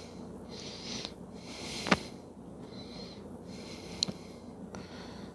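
Two sharp clicks of a hand tool on metal as a bolt is worked loose on a truck engine, the louder about two seconds in and a lighter one about four seconds in, between short bursts of faint hiss.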